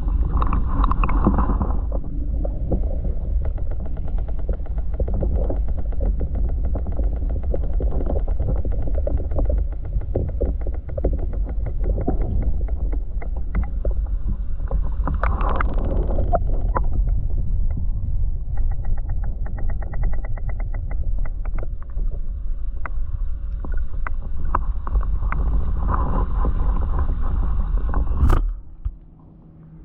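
Muffled underwater sound from a camera held under the surface of a freshwater lake: a steady low rumble of water moving around the housing, with runs of faint rapid ticks. Near the end a sharp click as the camera breaks the surface, and the sound drops away.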